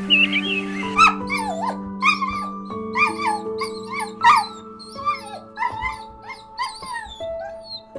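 A dog whining and yipping in a quick string of short, high calls that slide up and down in pitch, starting about a second in, over soft background music with held notes.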